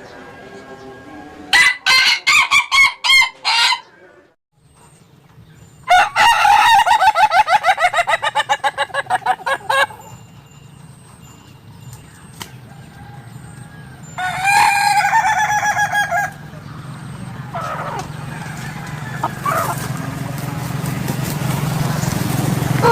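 Ayam ketawa (Indonesian laughing chicken) crowing three times, each crow a fast run of short, laugh-like notes; the middle crow is the longest, nearly four seconds. A low hum grows louder in the last few seconds.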